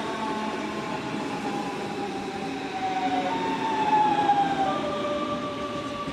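DB Class 425/426 electric multiple unit moving through the station, its traction converters whining in several tones over the rumble of the running gear. The tones slide slowly down, then switch abruptly to a new pitch pattern a little over four seconds in.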